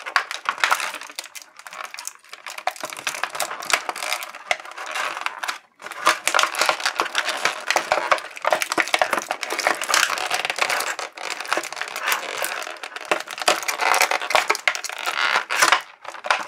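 Clear plastic blister tray of an action-figure box set crackling and crinkling as a tightly held figure is worked loose by hand: a long, dense run of sharp clicks and crackles, with a brief pause about six seconds in.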